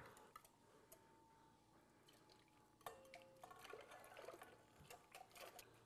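Faint sound of a warm milk mixture being poured from a saucepan into a stainless steel mixer bowl, with a light patter and small clinks, starting about three seconds in; before that, near silence.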